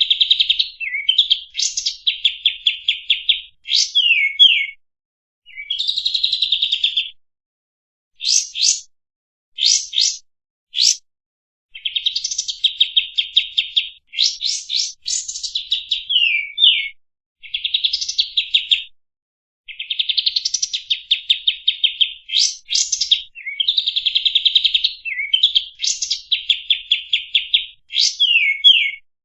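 Kapas tembak singing a varied song: fast trilled phrases of rapidly repeated notes, quick downward slurs and sharp upward sweeps, broken by brief pauses.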